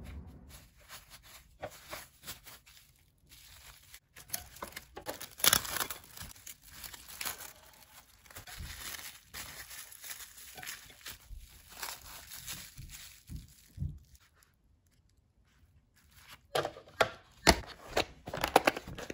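Plastic cling wrap crinkling and rustling as it is wrapped and pressed around a sandwich. Near the end comes a quick run of sharp plastic crackles and clicks as a clear plastic food container and its lid are handled.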